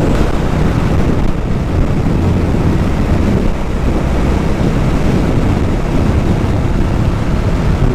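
Steady wind rushing over the microphone of a motorcycle riding at road speed, with low road and engine noise underneath.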